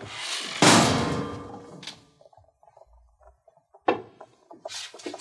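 A heavy door shutting with a loud thud that rings out for about a second, followed by a single sharp click about four seconds in and faint light taps.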